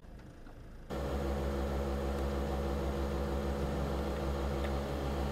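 Truck diesel engine running at a steady speed, heard from inside the cab as an even low hum with a hiss over it. It starts abruptly about a second in.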